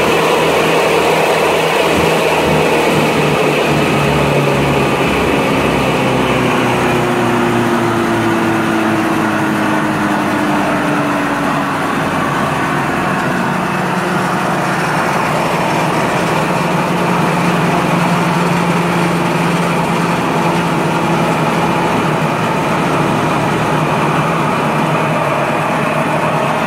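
Morbark Tornado 15 drum wood chipper running, its diesel engine and machinery making a steady, loud noise. Over several seconds in the first half the pitch falls gradually, then it holds steady.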